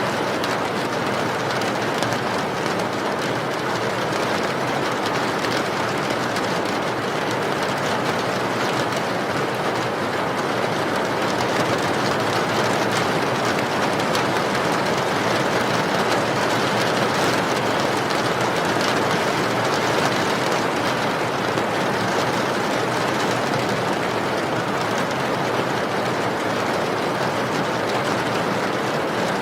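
Steady rainfall: a dense, even hiss of drops with fine patter, unbroken and unchanging in level.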